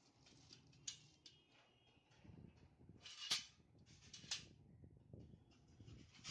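Faint handling noise of microwave oven wall brackets and their packaging: soft rustling with a few light clicks and knocks, the sharpest about three seconds in and another a second later.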